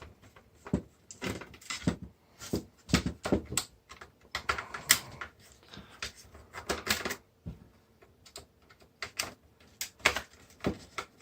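Irregular clicks, taps and knocks of the plastic parts and housing of an SVP film scanner being handled and tugged at during disassembly, as an internal part is worked loose.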